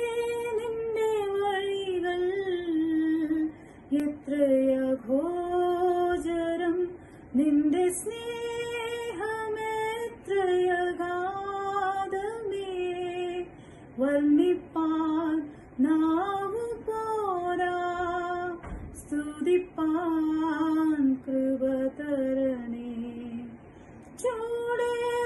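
A woman singing solo in long held phrases, with short pauses for breath between them.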